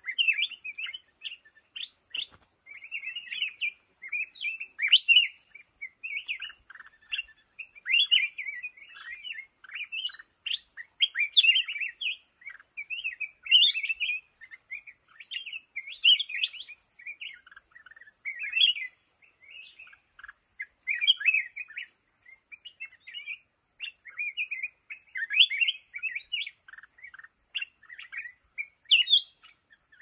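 Black-crested bulbul singing: quick, bright chattering phrases, repeated every two or three seconds.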